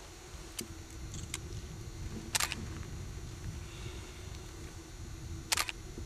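Digital SLR camera shutter firing twice, about three seconds apart, with a couple of fainter clicks before them, over a low steady rumble.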